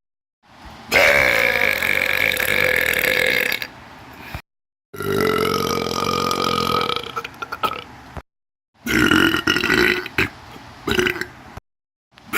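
Three long human burps in a row, each lasting two to three seconds, separated by short gaps of dead silence.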